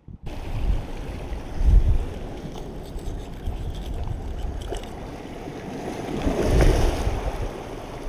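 Wind gusting on the microphone over surf washing around tidepool rocks, the gusts strongest about two seconds in and again near the end.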